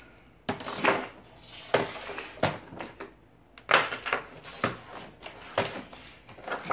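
Hand tools (a desoldering pump, pliers, tweezers) being put down and shifted about on a wooden workbench: a string of irregular clacks and knocks of plastic and metal on wood.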